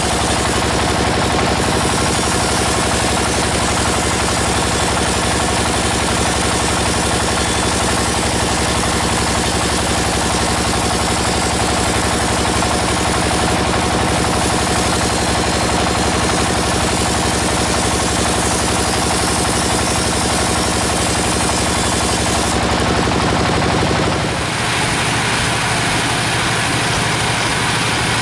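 Engine of a band sawmill running steadily at a constant speed. About 24 seconds in the sound changes: the low hum drops away and a brighter hissing noise takes over.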